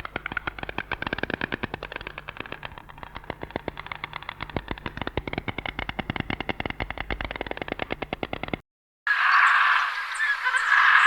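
A fast, even rattle of clicks, about ten a second, stops after about eight and a half seconds. After a short break, a dense chorus of chirping birds begins.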